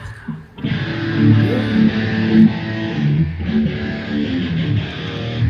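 A rock band strikes up about half a second in, with electric guitar and bass guitar playing through amplifiers at a sound check.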